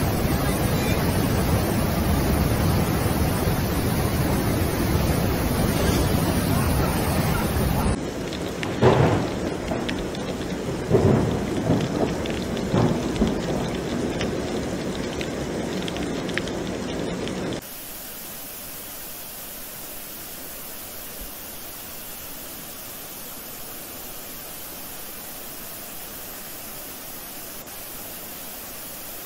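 Muddy flash-flood water rushing down a wadi: a steady, loud rush of noise that changes abruptly twice. In the middle stretch several sharp thumps stand out, and the last stretch is quieter and even.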